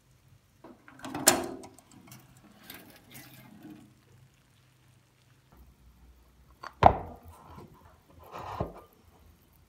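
A glass baking dish being taken out of a wood-stove oven: a sharp click about a second in as the oven door opens, a couple of seconds of scraping and rattling as the dish is drawn out, then two knocks near the end, the first the loudest, as the dish is set down on a wooden table.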